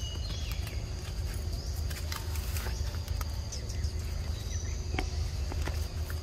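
Steady high-pitched drone of forest insects, with scattered light rustles and clicks in the leaf litter and a steady low rumble underneath. A few brief high chirps come near the start and again about four and a half seconds in.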